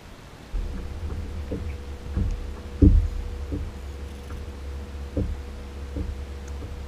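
Small waves knock against the hull of a plastic sit-on-top kayak. About seven hollow knocks come at uneven intervals, the loudest about three seconds in, over a steady low rumble of wind and water on the camera that starts about half a second in.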